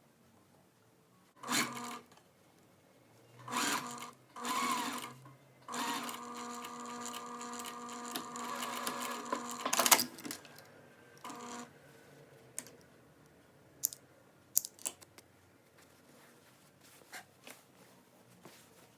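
Domestic sewing machine stitching a shirt's triple-folded hem in several short runs, the longest about four seconds, stopping and starting between them. A few sharp clicks follow in the second half.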